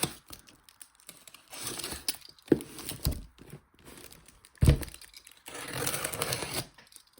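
A cardboard box and its packing being handled and opened: rustling and crinkling with scattered knocks, and one heavy thump about four and a half seconds in.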